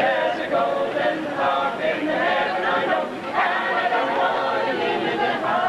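Mixed choir of men and women singing a cappella, in sustained chords with a short break between phrases about halfway through.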